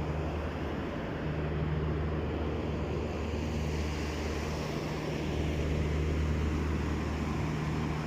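Steady low machinery hum, two low tones held under an even rushing noise, typical of HVAC units such as chiller fans and compressors running.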